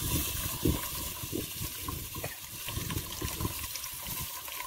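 Coconut water pouring and splashing into a cooking pan.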